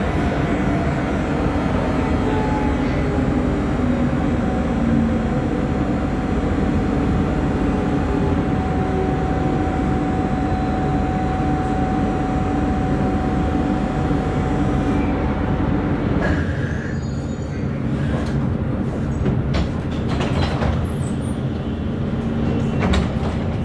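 Duewag B80D light-rail car running along the line, heard from on board: a steady rumble of wheels on rail with a held whine through the middle. About two-thirds of the way through the rumble eases and a run of clicks and knocks follows.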